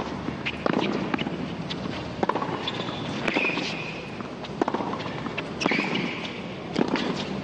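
Tennis rally on a hard court: sharp racket-on-ball hits about every second, with sneakers squeaking on the court surface twice.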